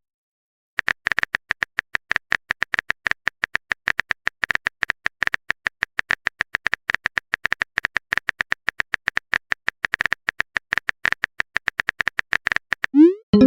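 Smartphone keyboard typing sound effect: a quick, even run of short taps, several a second, starting about a second in.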